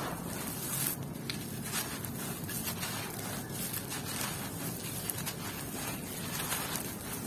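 Hands crumbling clumps of dry, gritty red dirt and gravel so that they pour back onto the pile: a continuous crunchy rustle of falling grit with many small crackles.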